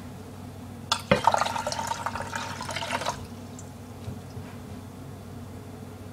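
Water from a kitchen tap running into a glass measuring cup for about two seconds, starting about a second in, then shut off.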